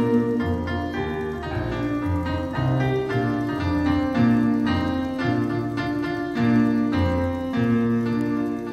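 Electric keyboard playing in a piano voice: chords struck one after another over a changing bass line, an instrumental passage with no singing.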